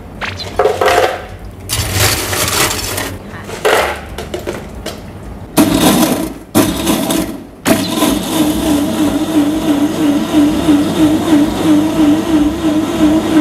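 Ice cubes rattling into a blender jar, then a high-performance commercial blender with a sound-enclosure hood starts crushing ice with a Milo and milk mix. It cuts out twice briefly, then runs steadily with a regular wobble in its pitch.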